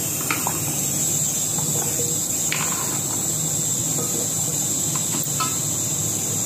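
A steady high-pitched buzz in the background, with a few faint light clicks as small onion and garlic pieces are dropped by hand into a steel mixer-grinder jar.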